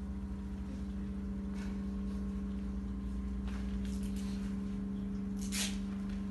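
A steady low hum, with a few short rustling noises over it, the loudest about five and a half seconds in.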